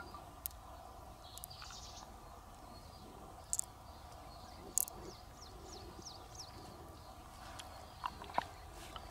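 Quiet outdoor ambience with a few short, high bird chirps. Several sharp clicks, the loudest about three and a half, five and eight seconds in, come from pearls knocking together as they are picked out of a freshwater mussel and held in the palm.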